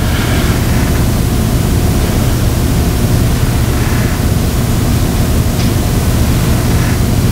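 Loud, steady hiss with a low electrical hum underneath: noise from the microphone and recording chain, with no one speaking.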